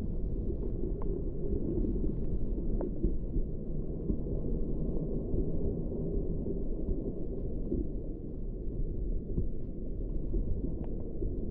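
Underwater ambience picked up by an action camera in its waterproof housing: a steady, muffled low rumble of moving water, with faint scattered crackles and clicks.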